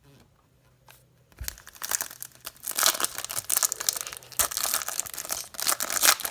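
Foil trading-card pack wrapper being torn open and crinkled by hand, starting with a soft knock about a second and a half in.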